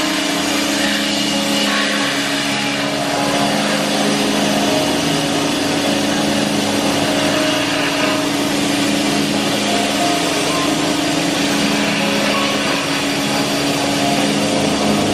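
Sandblasting cabinet in use: a steady hiss of compressed air and grit blasting against metal radiator parts, over a steady low hum.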